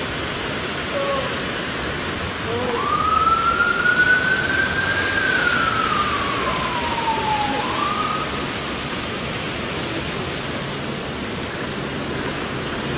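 Steady rushing hiss of rain. About three seconds in, a long sliding tone rises, then falls slowly over several seconds, then rises briefly once more.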